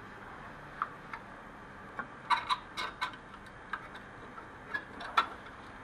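Irregular light clicks and taps of a radiator fan resistor pack and its retaining bracket being handled and slid into the bracket's slots, several of them close together about two to three seconds in.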